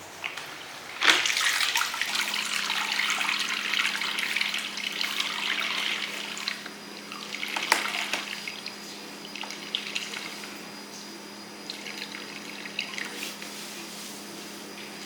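Water running from a tap into a sink. It starts with a click about a second in and runs for some five seconds, then there is a shorter run near the middle with small clatters after it. A steady low hum sets in about two seconds in.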